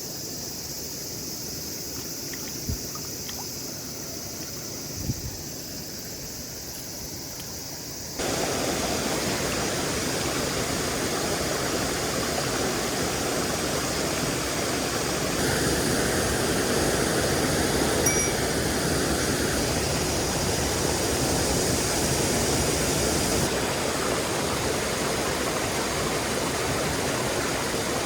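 Mountain stream water rushing steadily over rocks, with a couple of faint knocks in the first few seconds; about eight seconds in, the rushing suddenly becomes louder and fuller and stays that way.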